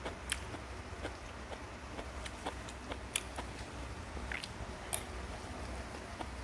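Someone eating fried rice: chewing, with a few sharp clinks of a metal spoon against a ceramic bowl.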